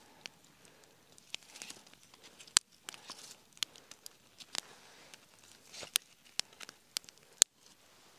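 Wood campfire crackling, with irregular sharp pops, two of them much louder than the rest.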